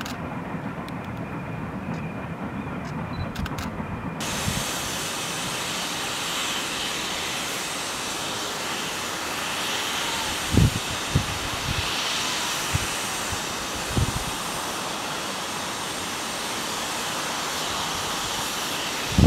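Steam locomotive letting off a steady hiss of steam, which starts abruptly about four seconds in after a low, distant rumble. A few low thumps come near the middle.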